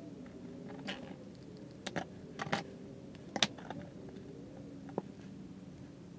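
Light clicks and taps of small parts being handled: a die-cast metal model truck cab and small plastic pieces set down and fitted by hand on a cutting mat, the sharpest tap about three and a half seconds in. A faint steady hum runs underneath.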